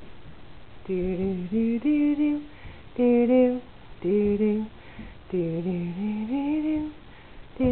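A voice humming a slow wordless tune in short phrases, the pitch stepping and gliding up and down with brief pauses between phrases.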